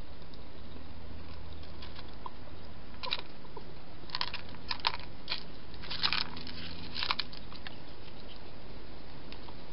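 A European hedgehog chewing crunchy food at a feeding dish. It gives a run of crisp, irregular crunches and clicks from about three seconds in to about seven seconds in.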